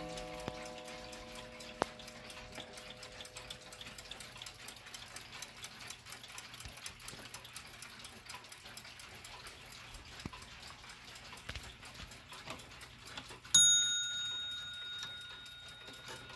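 Several mechanical clocks ticking together. The first second carries the fading ring of a clock strike. About three seconds before the end comes a single bright, high metallic ding that rings on and fades.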